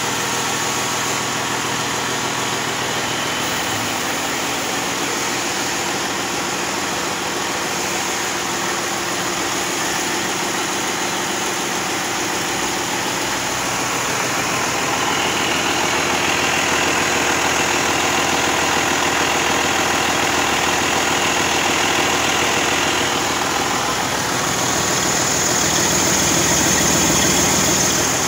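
Detroit Series 60 12.7L inline-six diesel engine running steadily at idle on a test stand. It grows somewhat louder partway through, with a high-pitched turbocharger whine that comes up strongest in the last few seconds.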